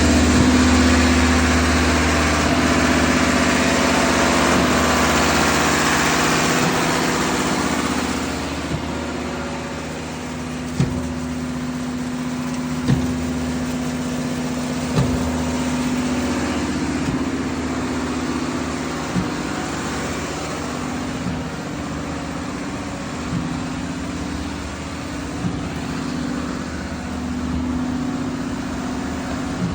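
Concrete pump's six-cylinder engine running steadily, loud at first and a little quieter after about eight seconds. From about ten seconds in, a short knock comes about every two seconds as the pump cycles.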